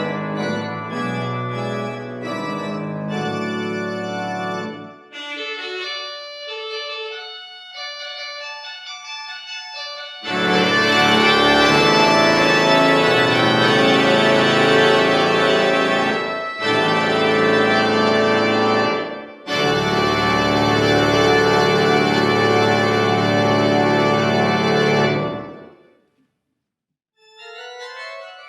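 1979 Austin pipe organ playing: full sustained chords with deep pedal bass that thin to a lighter passage about five seconds in, then loud full-organ chords with two short breaks. It stops briefly near the end before a softer run of rising notes.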